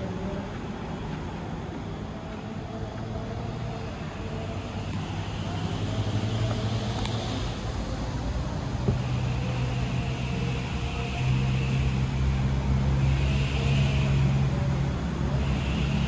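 Road traffic: a vehicle engine's low steady hum, growing louder through the second half, with a single sharp click about nine seconds in.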